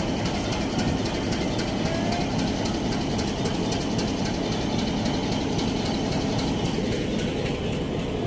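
Diesel locomotive engine running with a steady low rumble as it hauls a passenger train slowly out of the station along the platform.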